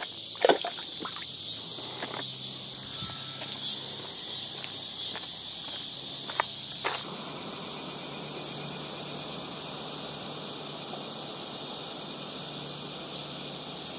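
A steady high chorus of insects buzzing in summer vegetation, with a few short knocks and clicks in the first half, the loudest about half a second in.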